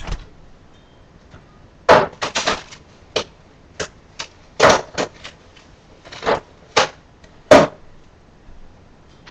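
A string of about a dozen sharp knocks, clicks and bumps, irregularly spaced: someone moving about a kitchen and handling things while fetching an egg.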